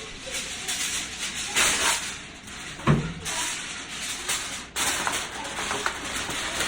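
Kitchen handling noise, with rustling or hissing stretches and one sharp thump about three seconds in.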